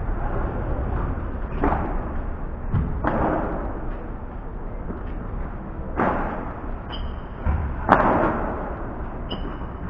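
Padel ball struck back and forth in a rally: four sharp hits a second or two apart, the loudest about eight seconds in. A few short high squeaks come near the end.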